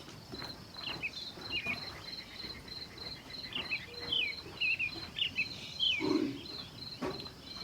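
An insect chirping in a steady, even pulse of high notes, with short chirps from a small bird scattered through the middle and a few faint knocks.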